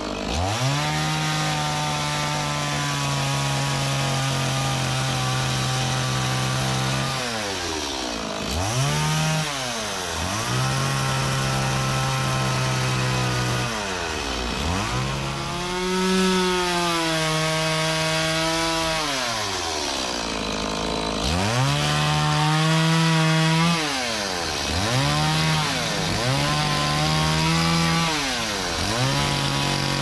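Stihl two-stroke chainsaw cutting into jackfruit-root wood. It is held at high revs through cuts lasting several seconds and drops briefly toward idle between passes, about eight times, with shorter, quicker passes near the end.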